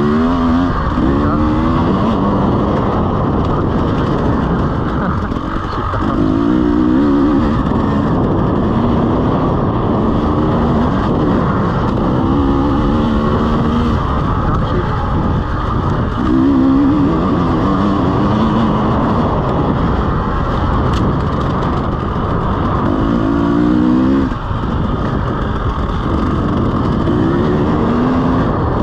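2017 KTM EXC 300 single-cylinder two-stroke dirt bike engine revving under hard riding, its pitch climbing and dropping every few seconds as the rider works the throttle and gears.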